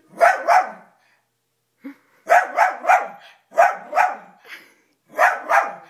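Dachshund barking at its own image on a TV: about nine short barks in quick groups of two or three, with short gaps between the groups.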